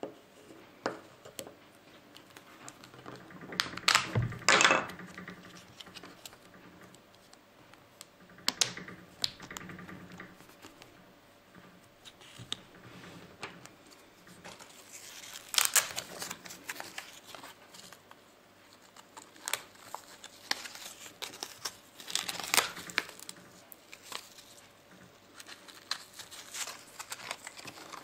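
Handling noise from a small Orbiloc Dual safety light and its rubber mount being worked by hand on a tabletop: irregular clicks, knocks and rustling, loudest about four seconds in and again around sixteen and twenty-two seconds.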